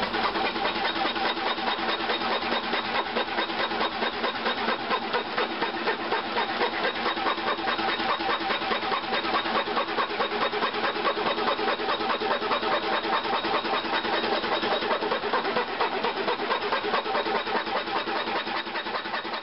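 Homemade wooden scroll saw driven by an electric drill, running steadily as its coping saw blade cuts through wood, with a fast rhythmic chatter over the drill motor's whine.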